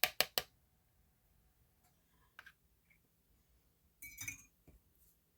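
Spoon tapping rapidly against a mixing bowl, about five taps a second, while the molasses mixture is emptied into another bowl; the taps stop within the first half second. A few soft clicks follow, then a ringing clink of dishware about four seconds in.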